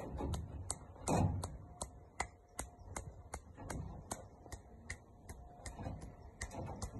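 Steady, even ticking, about three sharp clicks a second, with a louder low rumble about a second in.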